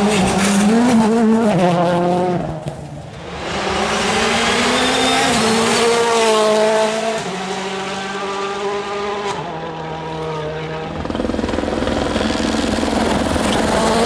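Turbocharged four-cylinder World Rally Car engines at full throttle as rally cars pass one after another. The engine note climbs under acceleration and drops at each upshift.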